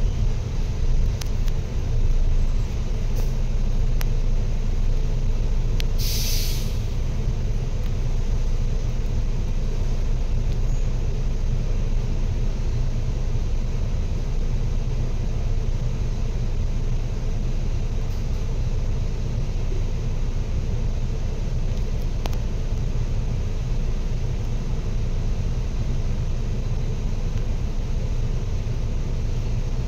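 Steady low rumble of a vehicle in motion, with a short sharp hiss about six seconds in.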